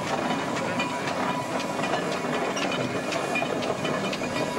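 Steam traction engine running with a steady hiss of steam and light, irregular mechanical clicking.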